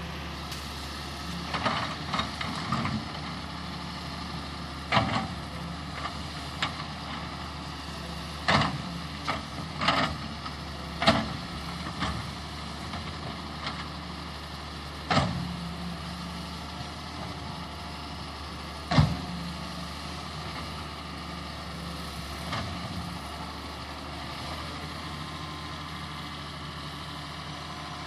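Wheel excavator's diesel engine running steadily as the machine works, with a dozen or so irregular sharp knocks and clanks from the working machine, thickest in the first half.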